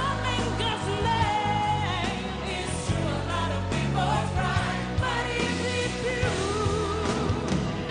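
A pop song: a singing voice over band accompaniment with a steady bass line.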